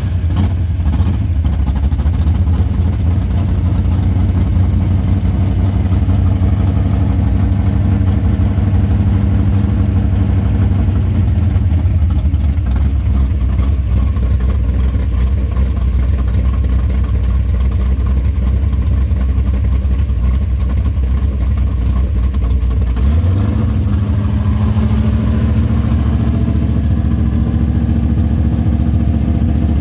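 Classic car V8 engine idling steadily just after being started, its idle note changing about two-thirds of the way through.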